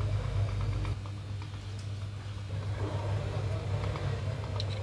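Steady low machine hum, with a deeper rumble under it that fades about a second in, and a few faint clicks.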